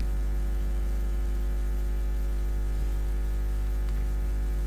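Steady electrical mains hum, a low drone with many evenly spaced overtones, over a light hiss.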